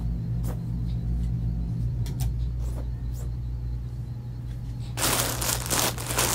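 Plastic bags of packaged clothing crinkling loudly as they are handled, starting about five seconds in, over a steady low hum; a few faint clicks from the hanger and clothes come before.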